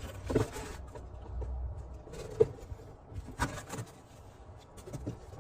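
Handling noises: a few scattered light knocks and rustles over a low background hum.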